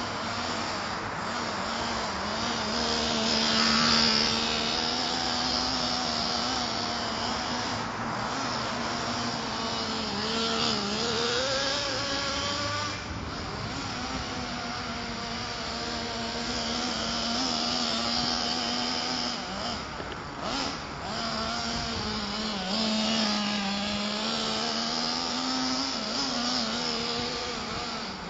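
GV Mammoth nitro RC monster truck's small two-stroke glow engine running under throttle, its pitch rising and falling as it is revved up and eased off again and again.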